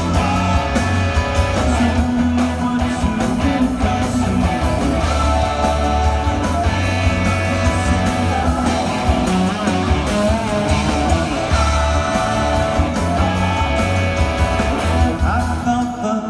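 Full rock band playing live in a concert hall, heard through a phone's microphone: electric guitar, bass, drums and sung vocals over a heavy, booming low end. The music stops at the very end.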